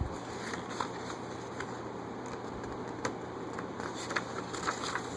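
Quiet room tone: a steady low hum and hiss with a few faint scattered clicks and soft rustles, the clearest click about three seconds in.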